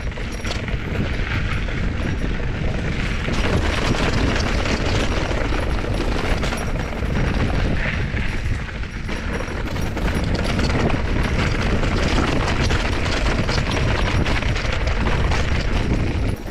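Mountain bike riding over a rough dirt singletrack: a continuous dense rattle of small knocks over a low rumble as the bike and its loaded handlebars shake over the ground, with trailside brush scraping past the bike and rider.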